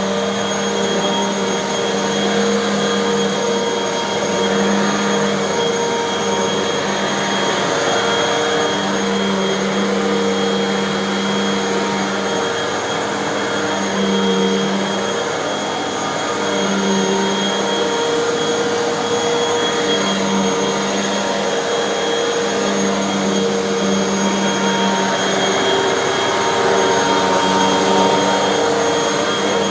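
Hoover bagless upright vacuum cleaner running on carpet: a steady motor drone with a thin high whine, and a low hum that swells and fades every few seconds as it is pushed back and forth.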